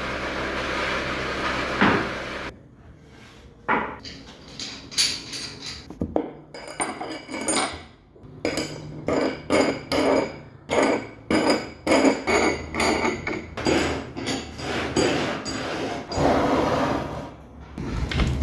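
A power tool runs for about two and a half seconds and cuts off, then a hammer strikes over and over at an uneven pace, about one or two blows a second, each with a short ringing tone. A power tool runs again briefly near the end.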